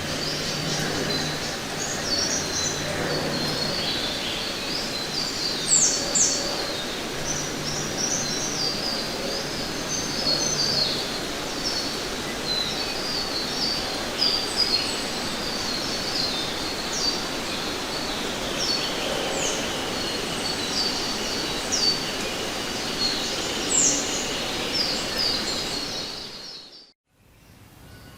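Forest ambience: many small birds chirping and trilling in quick, overlapping calls over a steady background hiss. The sound fades out near the end.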